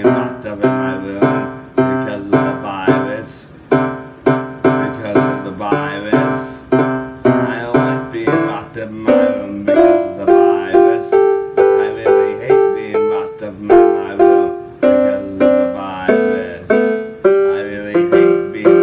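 Piano-style keyboard music: chords struck again and again at a steady, even rhythm, playing an instrumental passage between the sung lines.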